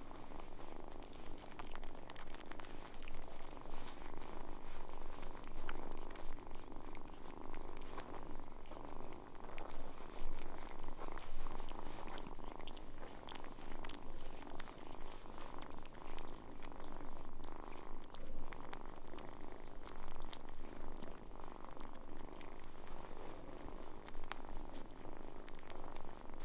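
A cat purring continuously, the purr swelling and fading in waves.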